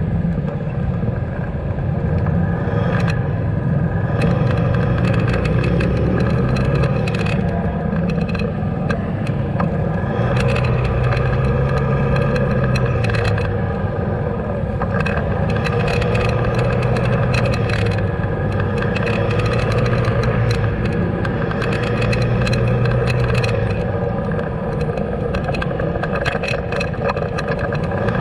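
Motorcycle engine running under the rider, its pitch rising and dropping again every few seconds as it speeds up and eases off in slow traffic, with frequent clicks and rattles over it.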